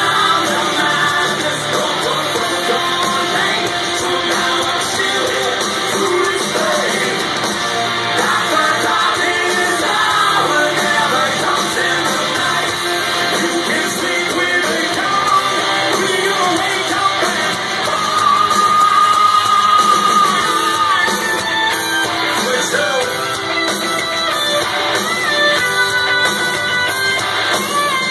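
A hard rock band playing live at full volume: electric guitars, drums and a singer yelling over the music.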